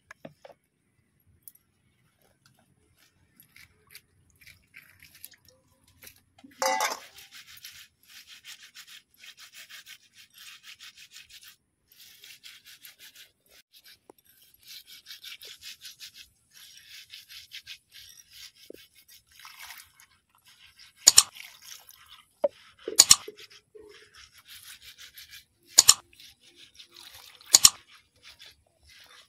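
A hand rubbing and pushing peeled prawns across a wet floor, making rapid, rasping scrubbing strokes in short runs. There is a louder clunk about seven seconds in, and four sharp knocks in the last third.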